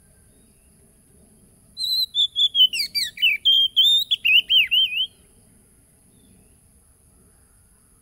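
Oriental magpie-robin (kacer) singing a burst of rapid, varied whistled notes that starts about two seconds in and stops about three seconds later.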